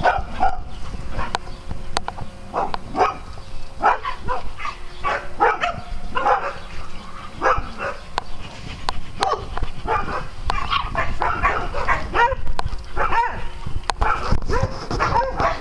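Dogs barking and yipping in play, short barks every second or so with some overlapping.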